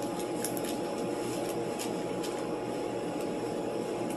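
Steady mechanical room hum with a faint steady whine, as from ventilation or an appliance running, with a few faint soft ticks.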